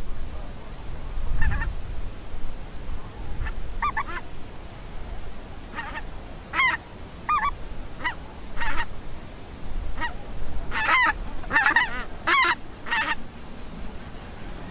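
Greylag geese honking: single short calls every second or two at first, then several calling together and overlapping about ten to thirteen seconds in, over a low rumble.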